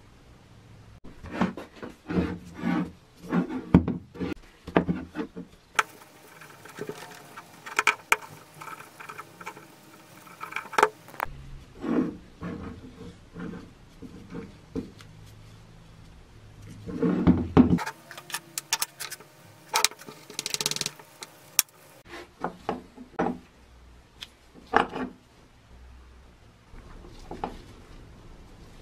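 Metal parts of an old corded drill's gear housing being handled and set down on a wooden workbench: scattered knocks, clinks and rattles in irregular bunches, with quieter rubbing between them.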